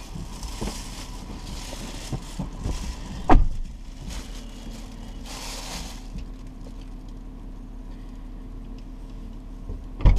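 Someone settling into a car seat and handling a rustling plastic bag, with one loud thump a little over three seconds in and a sharp knock near the end, over a steady low hum.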